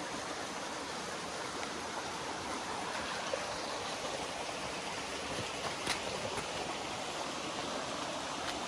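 Shallow creek water running steadily over rock and pebbles into a pool, an even rushing sound.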